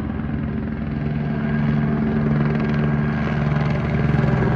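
Helicopter flying low overhead: a steady rapid rotor chop with an engine hum, growing slightly louder.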